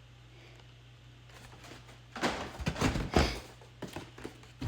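Handling noises as an action figure is taken out of a box: a quick cluster of knocks and rustles about two seconds in, then a few lighter ticks.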